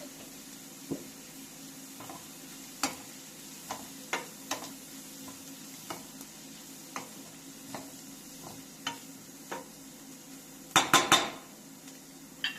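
Kitchen utensil stirring and tapping in a pot or pan, with scattered light clinks and a louder burst of clattering near the end, over a steady hiss and low hum.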